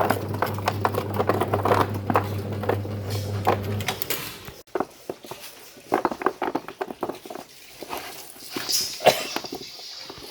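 Galangal peeling machine running with a steady motor hum and rhizomes knocking and rattling inside it; the hum stops about four seconds in. The rest is scattered, irregular knocks and clatter.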